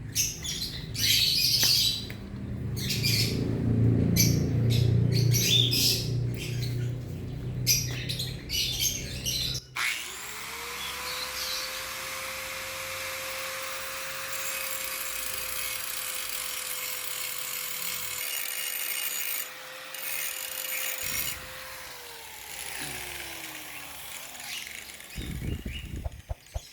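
Electric grinder working the edge of a motorcycle brake disc, with rough, uneven grinding noise. About ten seconds in it changes to a steady whine with a hiss above it. Near the end the grinder is switched off and its whine falls away as it spins down.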